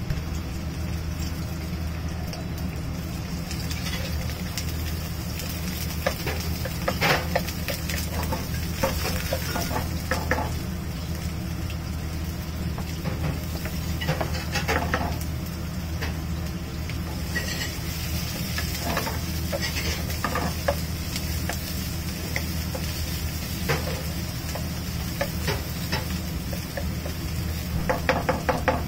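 Small restaurant kitchen sounds: a steady low hum, food sizzling, and scattered clinks and knocks of utensils and dishes. Faint voices come in now and then.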